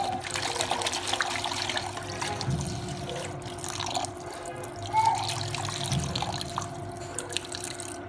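Malabar spinach leaves being washed by hand in a basin of water: steady splashing and sloshing with crackly wet rustling of the leaves.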